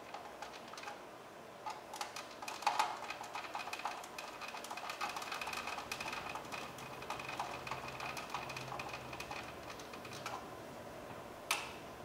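Phillips screwdriver driving screws into the Toyota Camry's plastic master window switch panel: a run of rapid small clicks and ticks, with a thin steady high tone for several seconds in the middle and one sharp click near the end.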